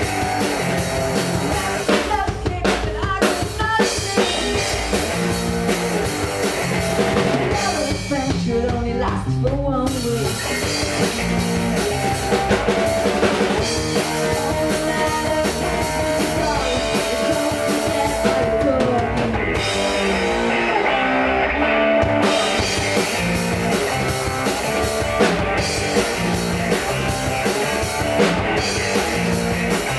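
Live rock band playing a song: electric guitars over a drum kit keeping a steady beat.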